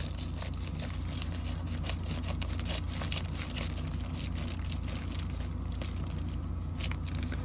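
Package being cut open and its packaging crinkled and torn by hand: a dense run of irregular crinkles, crackles and small snaps, over a steady low hum.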